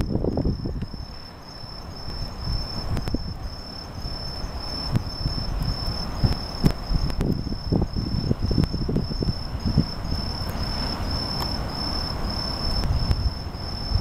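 Bell crickets (suzumushi) chirping, a high ringing note repeated about twice a second, over an uneven low rumble.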